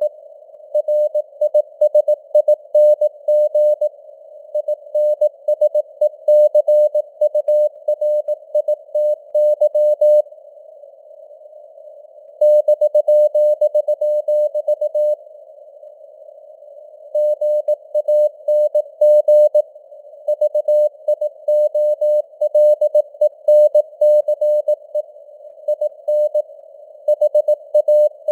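Morse code (CW) keyed at 18 words per minute: a single steady beep tone switched on and off in dots and dashes over a narrow band of simulated radio hiss. The sending pauses twice for about two seconds, a third of the way in and just past halfway, leaving only the hiss.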